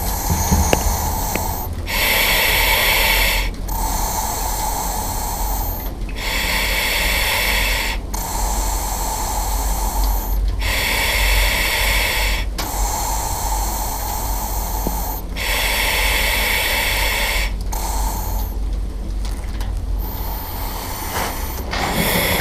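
A person breathing slowly and steadily, each inhale and exhale a loud hiss, a full breath about every four seconds.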